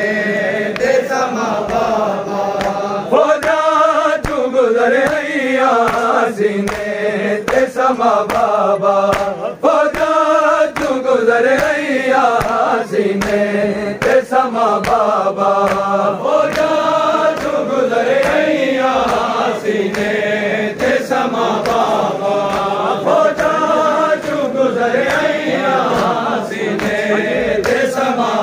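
A group of men chanting a noha (mourning lament) in chorus, with rhythmic matam, open-handed chest-beating slaps keeping the beat.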